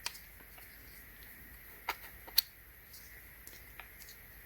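A few faint clicks and taps from plastic dent-puller glue tabs being handled, the two sharpest close together about two seconds in, over a low steady hum.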